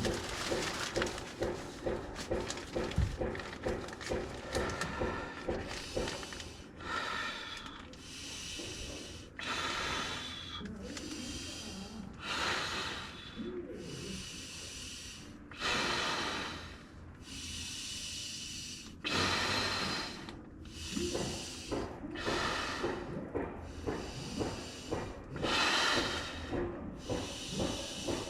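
A person blowing air by mouth into an inflatable sleeping mat: quick short puffs at first, then a string of long airy blows about a second each, with breaths taken in between.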